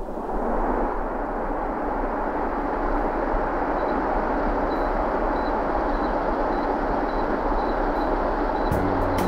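Wall-mounted split air conditioner blowing air: a steady rushing noise that comes in suddenly and holds. Music with a beat starts near the end.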